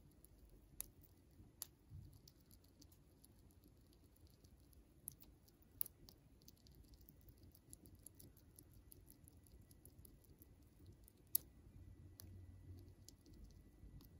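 Siberian chipmunk gnawing a pistachio held in its paws: faint, sparse sharp clicks of teeth on the nut, a few seconds apart, the loudest about eleven seconds in.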